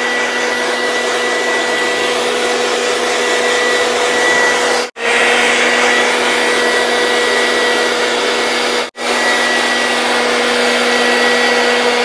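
Jupiter cordless 18-volt handheld blower running flat out: a steady rush of air with a constant high motor whine, broken for an instant twice.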